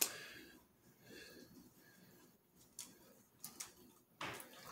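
Faint snuffling breaths and a few soft clicks from a dog eating a dropped piece of steak off the floor.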